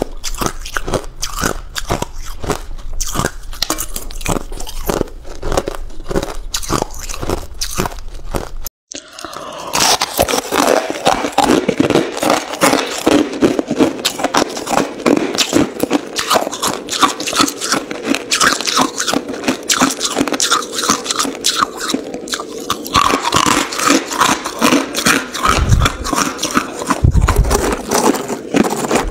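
Hard ice being bitten and crunched between the teeth, close to the microphone, in rapid, steady crunches. First it is clear balloon ice, then, after a sharp cut a little under nine seconds in, chunks of coloured ice crunched more densely. Two dull low thumps come near the end.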